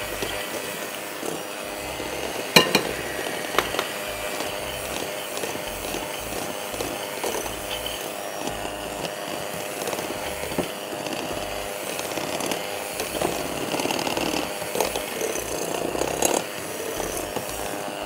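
Electric hand mixer running steadily as its beaters cream butter with powdered and brown sugar in a glass bowl. The metal beaters knock against the glass a few times, loudest about two and a half seconds in.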